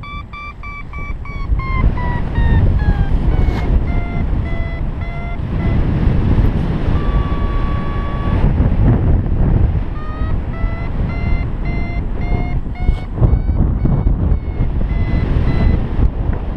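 Paragliding variometer beeping, its pitch sliding up and down as the glider climbs and sinks, with a higher pitch signalling lift. Heavy wind rush on the microphone runs under it.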